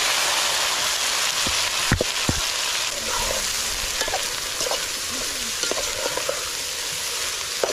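Small dried omena fish sizzling loudly in hot vegetable fat in a metal pot, stirred with a metal spoon. The spoon knocks twice against the pot about two seconds in.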